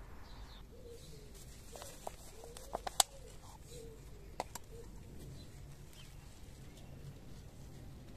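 A dove cooing, a run of low arching coos over the first half. A few sharp clicks land near the middle, one much louder than the rest.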